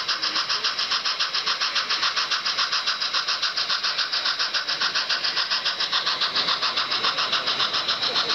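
Model steam locomotive's sound system chuffing in a rapid, even rhythm of hissing beats, several a second, as the locomotive hauls its log train.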